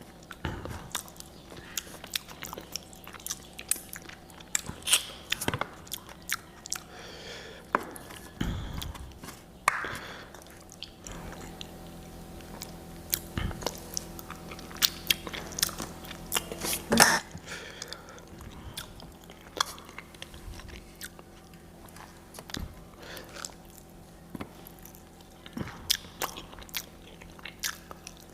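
Close-up eating sounds: chewing and biting, with many irregular sharp crunches and clicks.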